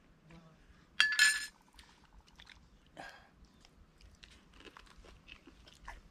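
A metal spoon clinks sharply against a ceramic bowl about a second in, then soft chewing and small mouth clicks as rice-paper fish rolls are eaten.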